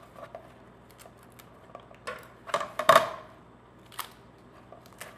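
Cut end of a corn cob's husk being pulled and snapped off by hand: a few crisp snaps and crackles, the loudest cluster about three seconds in.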